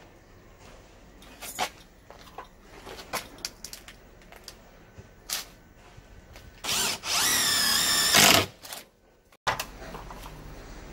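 Cordless drill running into a fiber-cement siding trim board: a short burst, then about a second of steady motor run with its pitch climbing, stopping abruptly. A few scattered light clicks and taps come before it.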